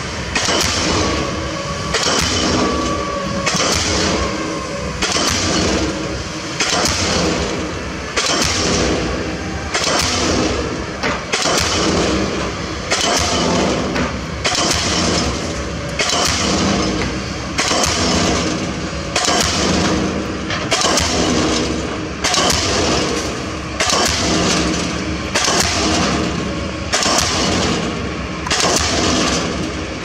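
Diesel pile hammer driving a pile: a steady series of sharp blows, about two every three seconds, over continuous machinery noise.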